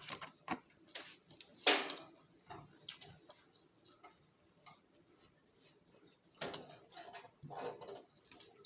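Close eating sounds: chewing and mouth smacks with irregular clicks and short rustles of food packaging, the loudest rustle about two seconds in and another cluster near the end.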